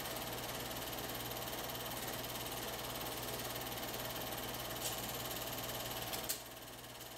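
Film projector running with a steady mechanical whirr, a rapid flutter and a low mains hum. A faint click comes about five seconds in, then a sharper click about six seconds in, after which the running noise drops and is quieter.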